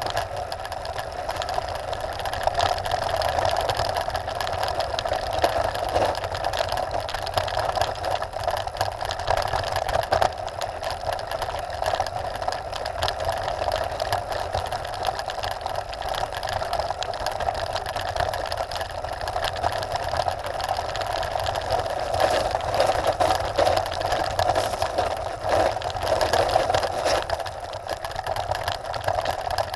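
A Trek Top Fuel 9.8 full-suspension mountain bike coasts down a gravel road. Its rear freehub ratchets in a steady buzz, over the rumble of the tyres and small knocks and rattles from the loose stones.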